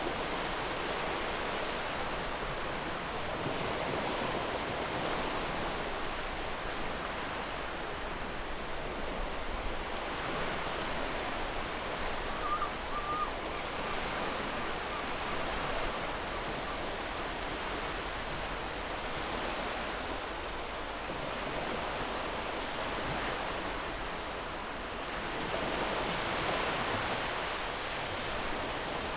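Ocean surf washing in: a steady hiss of breaking waves that swells and eases slowly every several seconds, with a brief faint high note about halfway through.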